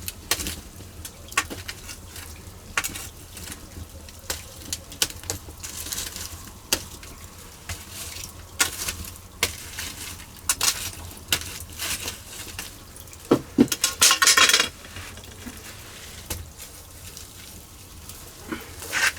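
Scattered sharp clicks and clinks over faint sizzling of Spanish mackerel grilling over wood charcoal. A louder rustling burst comes about fourteen seconds in.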